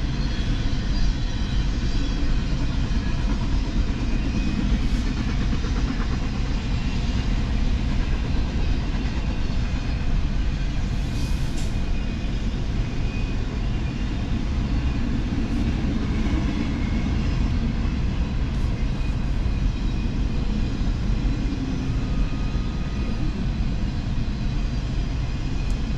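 Steady low rumble of a car, heard from inside its cabin.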